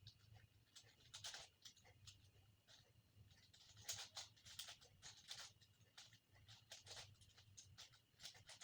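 Faint, irregular clicking of a 5x5 Rubik's cube's plastic layers being turned, in small clusters of quick clicks, over a low steady hum.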